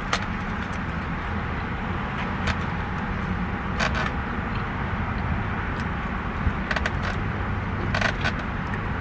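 Steady low hum inside a parked car, with a few faint clicks and crinkles from takeout food and containers being handled while eating.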